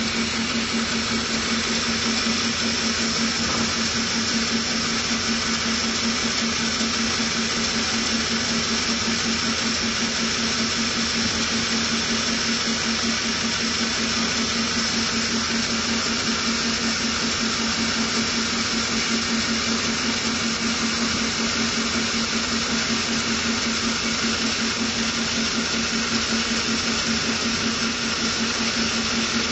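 Band sawmill running steadily, a constant low hum with a high whine from the moving blade, as a teak log is fed on the carriage toward the blade.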